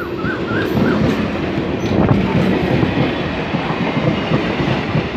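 Electric multiple-unit local train running fast past the platform, a loud rushing rumble with a rapid clatter of wheels over rail joints. It grows louder over the first two seconds as the coaches come close.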